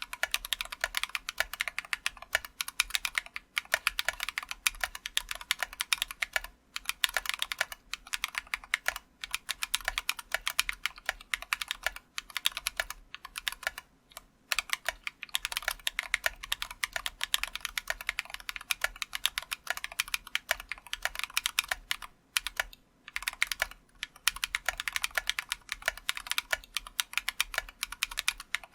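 Continuous fast typing on a mechanical keyboard with lubed Glorious Panda tactile switches and lubed screw-in stabilizers, a dense run of keystroke clacks broken by a few brief pauses.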